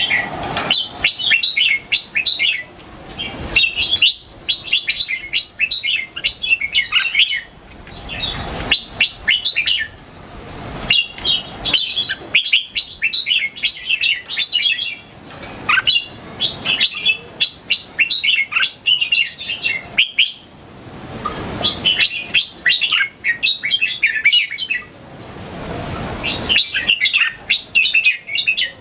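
Red-whiskered bulbul singing: bright, chirpy song phrases of rapid notes, each lasting two or three seconds and repeated after short pauses, about eight times.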